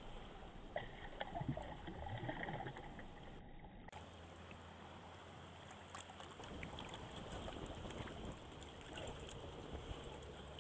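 Shallow water splashing and sloshing around a hand releasing a small redfish, then small waves lapping steadily.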